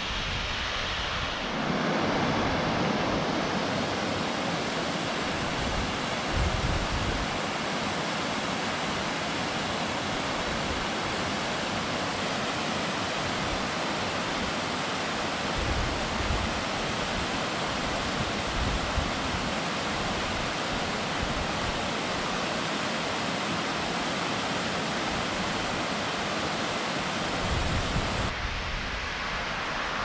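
Shirahige Falls, many thin streams pouring down a cliff into the river, giving a steady rushing hiss of falling water. Gusts of wind rumble on the microphone now and then.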